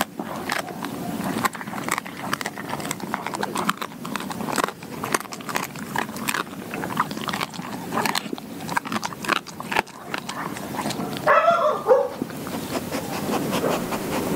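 Doberman chewing a whole raw quail close to the microphone, its bones cracking in quick, irregular crunches. A short pitched sound that bends up and down stands out about eleven seconds in.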